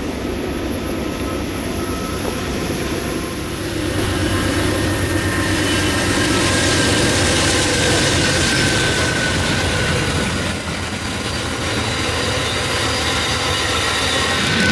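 Train rolling past: the steady rumble of wheels on rail, louder from about four seconds in, with faint high-pitched wheel squeal on the rails.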